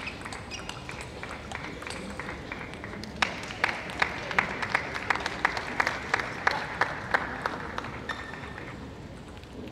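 Arena crowd applauding after a point in a table tennis match. From about three seconds in until near the end, a run of sharp, regular claps comes about three a second over the general applause.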